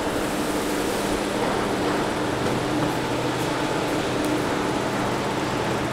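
Steady ambience of a large railway station concourse: an even hum and rush with a few faint held tones, with no distinct events.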